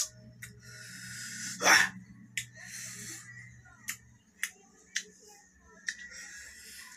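A man eating very sour kamias (bilimbi) fruit: sharp mouth clicks and smacks, several hissing breaths drawn through the teeth, and one loud short vocal exclamation a little under two seconds in.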